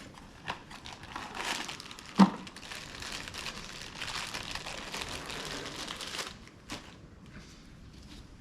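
Packaging crinkling and rustling as new brake wheel cylinders are unwrapped from their parts box, with a sharp knock a little over two seconds in and a few lighter clicks.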